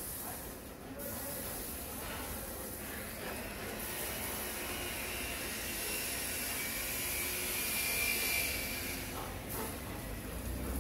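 Water from a garden hose spraying and splattering on wet paving tiles: a steady hiss that grows louder and then eases near the end.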